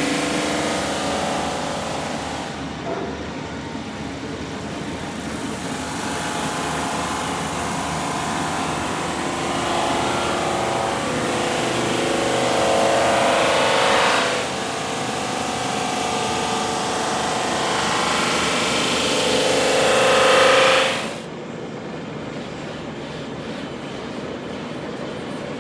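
IWM double drum sander running steadily, growing louder and coarser twice while a board passes under the sanding drums, each time dropping back abruptly as the board clears.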